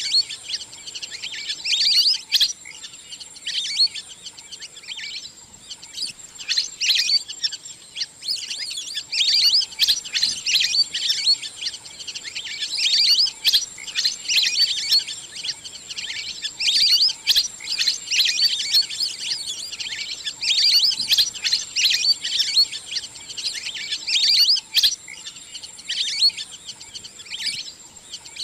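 Wild ducks calling: dense, high-pitched chirping whistles that come in repeated bursts every couple of seconds, over a steady high-pitched whine.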